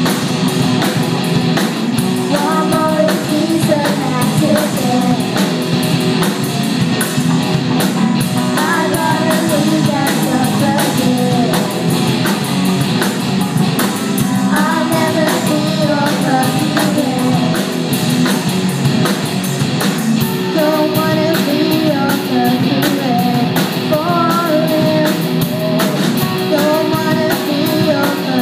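A school rock band playing a song: singing over guitar and a drum kit keeping a steady beat.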